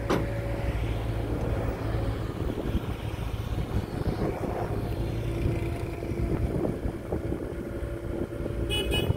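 Caterpillar 307B excavator's diesel engine running under load as the machine crawls onto a truck bed, with repeated clanks from its steel tracks and undercarriage. A brief high-pitched squeal comes near the end.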